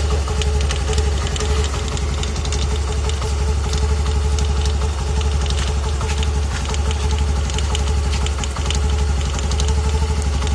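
Honda Activa 125 scooter's single-cylinder engine idling steadily, with irregular sharp ticks over the running. This is the knocking sound the owner reports on first start of the day or after a long break, which three services have not cured.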